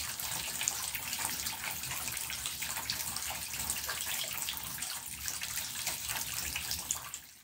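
Bath mixer tap running a thin stream of water into the bath, a steady splashing trickle. The flow is low because the loft cold-water tank feeding the tap is nearly drained.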